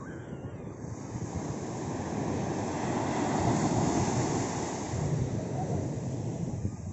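Small sea waves breaking and washing up a sand beach: the rush of surf builds over a couple of seconds, is loudest around the middle, then eases off near the end.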